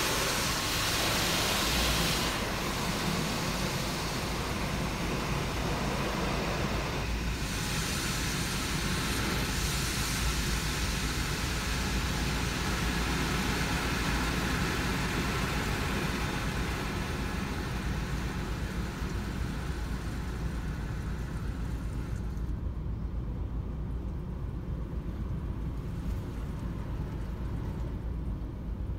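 Car wash rinse water spraying over the car, heard from inside the cabin as a loud hiss in the first couple of seconds and again from about seven to ten seconds in, then dying away, over a steady low rumble.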